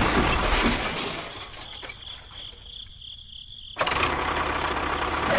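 A small engine or motor running with a noisy sound that dies away over the first couple of seconds, then cuts back in suddenly past the middle. In the quiet gap a steady, high, pulsing chirp is heard.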